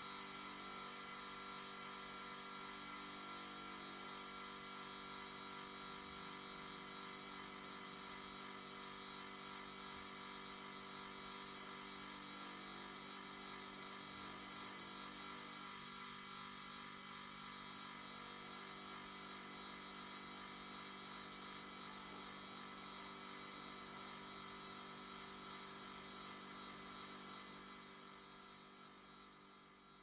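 Refrigerator running: a steady hum made of several held tones, low and high together, fading out over the last few seconds.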